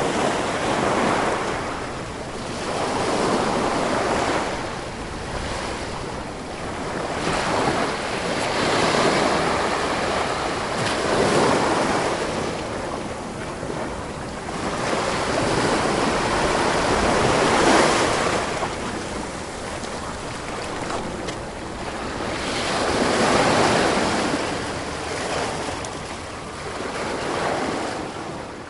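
Sea surf washing onto a beach: waves swell up and fade away one after another, every few seconds.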